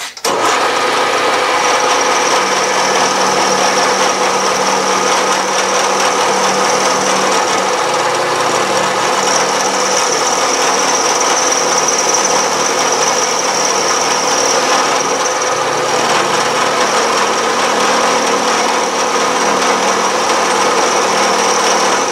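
Vertical milling machine running, its end mill cutting along the side of a metal block held in a milling vise. It makes a steady cutting noise with a high whine as the stock is milled down to a layout line.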